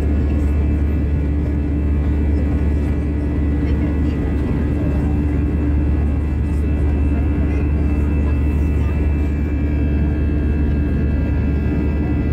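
Airliner's wing-mounted turbofan jet engine heard from inside the cabin: a loud, steady drone with a deep hum and several steady whining tones over it.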